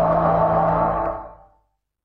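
Decaying tail of an intro music sting: a held, ringing low chord that fades away about one and a half seconds in, leaving silence.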